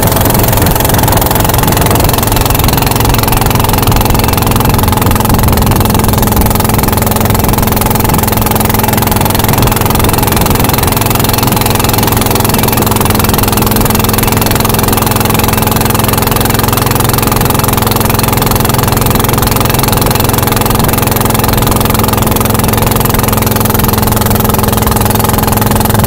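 Long-tail boat engine running steadily at cruising speed, an even low drone with the rush of water and wind over it.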